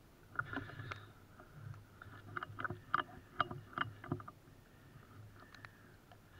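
Footsteps and rustling in dry field grass, with a run of sharp, irregular crackles from about half a second to four seconds in, then quieter.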